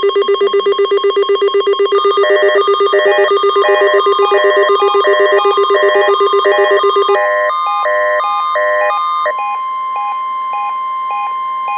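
Weather radio alert alarms sounding during a NOAA Weather Radio required weekly test. A fast-pulsing alarm beep is joined by a beeping alarm at about two beeps a second, and a few seconds in the steady 1050 Hz warning alarm tone comes in and holds.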